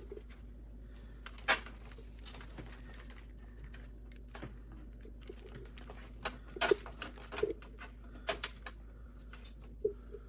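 Scattered clicks and knocks of computer parts being handled while a motherboard is fitted into a PC case, over a faint steady hum.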